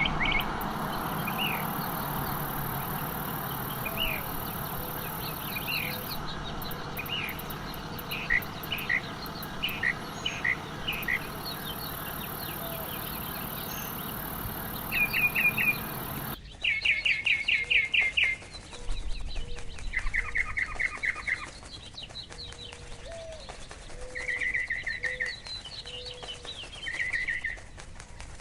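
Birds chirping and calling in short repeated phrases, with a steady high insect buzz beneath them for the first half. About halfway through the sound changes abruptly to a quieter background with bursts of rapid trilled chirps.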